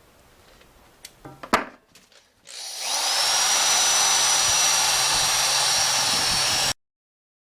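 A few clicks and knocks, then a power tool with a wire wheel spins up to a steady high whine over a loud scratchy hiss, stripping old paint off cast metal lathe parts; it cuts off abruptly.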